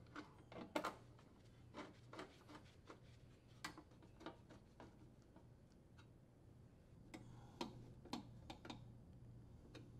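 Faint, irregular clicks and scrapes of a hand Phillips screwdriver turning screws into a sheet-metal junction box cover.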